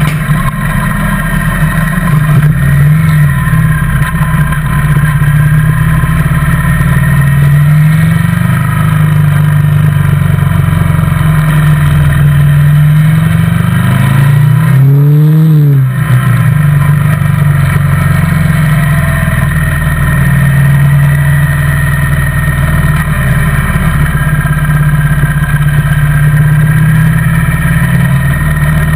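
Motorcycle engine running under way, heard from the rider's own bike, its pitch rising and falling with the throttle. About halfway through the engine briefly revs up and drops back.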